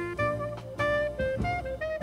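Instrumental jazz background music with a saxophone melody over bass and drums.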